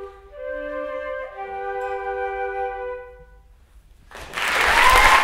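Three concert flutes playing the closing notes of a trio, the last held chord stopping about three seconds in. After a short pause, audience applause breaks out about a second later and is the loudest sound.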